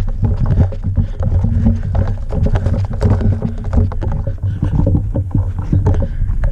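Footsteps crunching on dry dirt and brush, with scrapes and knocks of gear and branches and a heavy, uneven rumble from the wearer's movement on a body-worn camera microphone.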